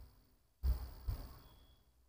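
Two faint, low handling thumps about half a second apart, from a hand working at the controller and key switch on the bench.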